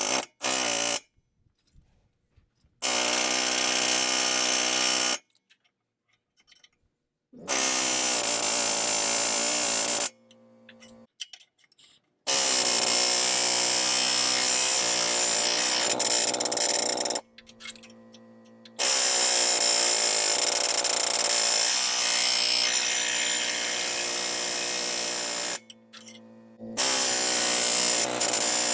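Pneumatic air hammer with a cutting chisel hammering against a rusted exhaust clamp to cut it off. It runs in about six bursts with a rapid, steady buzz, each burst lasting from one to about seven seconds, stopping and starting between them.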